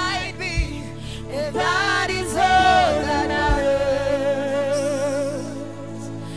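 Live gospel worship song: a lead voice sings with vibrato over a steady instrumental backing, holding one long note about halfway through, with backing singers joining in.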